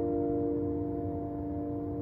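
Steady droning hum of several held tones over a low rumble, unchanging throughout: one of the unexplained 'strange sounds' that people record and cannot identify.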